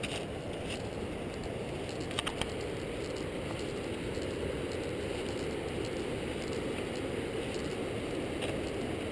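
Steady rushing noise of riding along a dirt trail: wind over a helmet or handlebar camera and tyres rolling on packed dirt, with a quick rattle of clicks about two seconds in.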